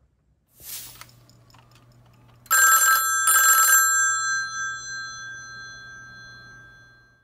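A brief falling whoosh, then two short rings of a telephone bell, the second left ringing on and slowly fading out.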